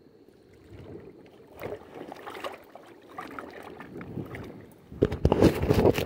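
Irregular wet splashing and handling sounds around a landed brown trout held in the hands at the river's edge, with a louder burst of knocks and rustling about five seconds in as the phone is moved.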